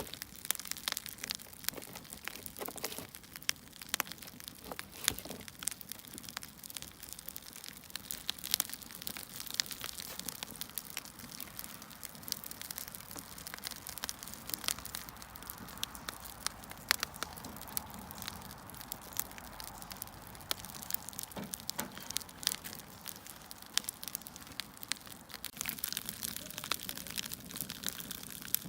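Wood fire crackling, with irregular sharp pops and snaps over a soft steady hiss.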